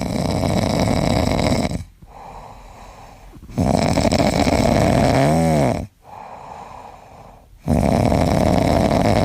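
Loud snoring: three long, noisy breaths about four seconds apart, the middle one with a short pitched squeak that rises and falls.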